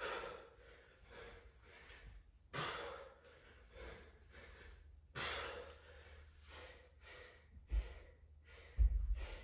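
A man breathing hard and panting during dumbbell snatches, with a loud forceful exhale about every two and a half seconds. Near the end come two dull low thuds as the dumbbell is set down on the gym floor, the second the louder.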